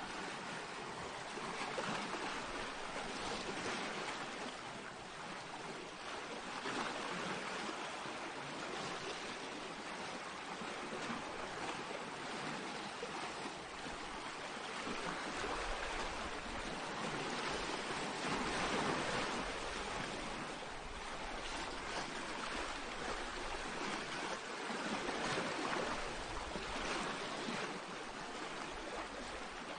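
Small waves washing onto a pebble beach: a steady rush that swells and eases every few seconds.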